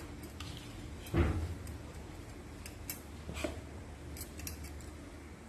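Boiled banana peels being put by hand into a stainless-steel mixer-grinder jar: a soft thump about a second in, then a few light clicks and taps of handling.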